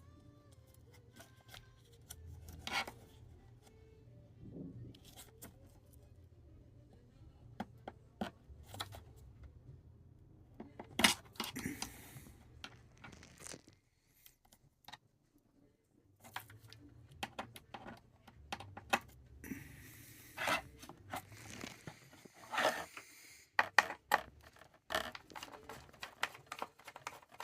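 Small tools and computer parts being handled during an iMac repair: scattered clicks, taps and short scrapes, several louder, with a brief pause about halfway through.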